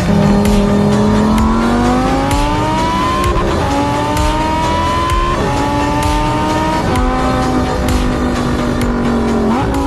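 Lamborghini supercar engine accelerating hard through the gears. Its exhaust note climbs in pitch and drops back at each upshift, four times, with scattered sharp cracks.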